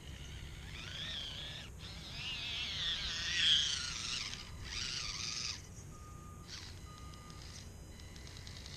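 RC rock crawler's electric motor and gears whining as it crawls through a muddy puddle, the pitch rising and falling with the throttle and loudest about three and a half seconds in. After that the whine drops to a fainter, steadier note in short stretches.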